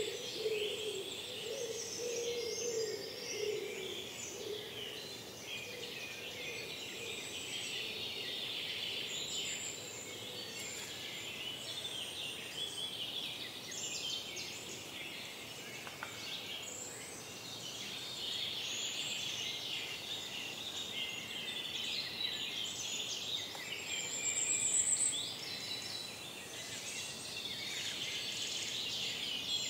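Forest dawn chorus: many songbirds singing over one another, with a lower wavering sound underneath during the first few seconds.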